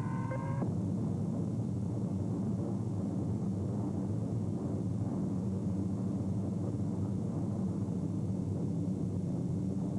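Steady, low drone of many propeller aircraft engines flying in formation. A set of steady high tones cuts off about half a second in.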